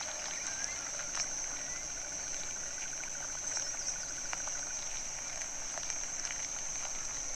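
Forest insect ambience: a steady high-pitched insect drone, joined for a few seconds by a faint rapid insect trill, with scattered small ticks.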